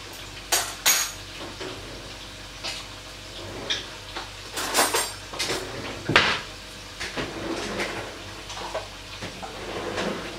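Scattered clinks and clatter of kitchen utensils and dishes being handled, spoons knocking against containers. There are a couple of sharp clinks in the first second, a cluster near the middle, and the loudest knock a little after six seconds.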